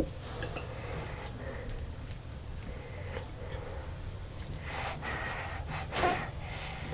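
Close-miked eating sounds of a person eating spicy chicken curry with rice: soft chewing and mouth clicks, with short noisy breaths or sniffs about five and six seconds in, over a steady low hum.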